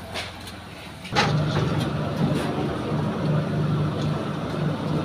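Hot oil sizzling in a large wok, then about a second in a steel drum machine for fried snacks cuts in with a steady low motor hum that pulses about two to three times a second.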